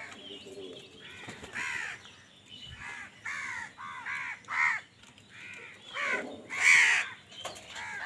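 House crows cawing, about a dozen harsh caws one after another from several birds, the loudest about two-thirds of the way through.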